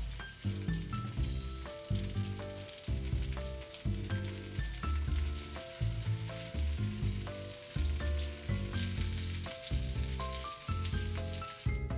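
Panko-breaded pork rolls shallow-frying in oil in a frying pan, a steady sizzle and crackle, with background music underneath. The sizzle cuts off right at the end while the music goes on.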